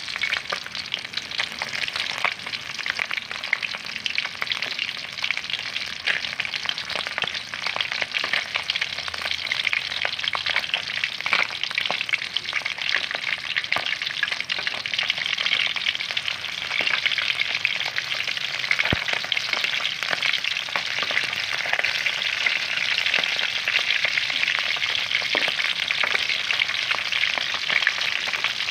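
Whole yellowtail scad fish frying in hot oil in a wok: a steady crackling sizzle full of small oil pops, growing a little louder in the second half, while a spatula turns the fish over.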